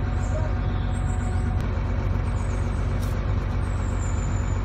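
Borewell drilling rig's heavy diesel engine running steadily under load, a constant low hum with a noisy rush over it.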